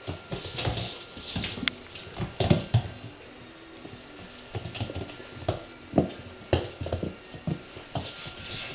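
Standard poodle puppies' claws and paws pattering and clicking irregularly on a tile floor as they scramble and play, with scattered knocks.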